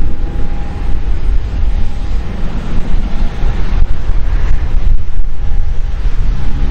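Wind buffeting the microphone in gusts, over the distant rumble of a taxiing Boeing 737's jet engines, with a faint steady whine that fades in and out.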